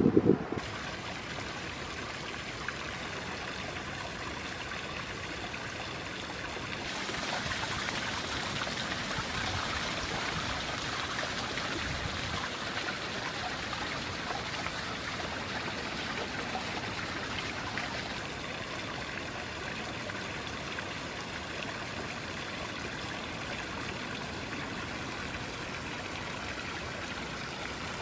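Flowing creek water, a steady rush and trickle that grows louder for a stretch in the middle.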